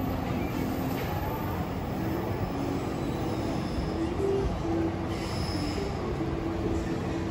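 Busy outdoor shopping-street ambience: a steady wash of noise with a simple tune playing over it from a shop, and a few faint high tones.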